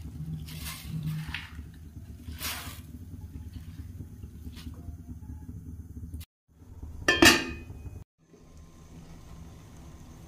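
Spinach leaves swished in water in a stainless steel bowl, with a few splashy swishes over a steady low rumble. About seven seconds in, one loud, ringing metal clink of the steel bowl; after it, a steady low hiss of the spinach boiling in water in a steel pan.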